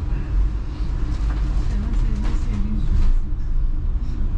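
Double-decker bus on the move, heard from inside the upper deck: a steady low engine and road rumble with faint rattles.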